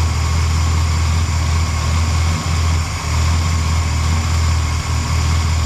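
Rebuilt Ford 460 big-block V8 of a 1975 Lincoln Continental idling steadily, with a few brief dips in the running.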